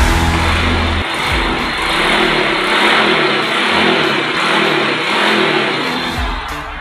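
Suzuki Raider J115 Fi's single-cylinder four-stroke engine running after a top overhaul with a new piston and cylinder block, its revs swelling and easing slightly as it is run in gently on the fresh parts.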